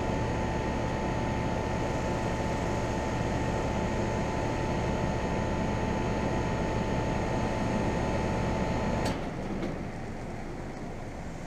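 2001 York 2.5-ton central air conditioner condenser running with a steady hum and a high whine, then shut off about nine seconds in: a click, the whine stops and the sound drops to a much lower level.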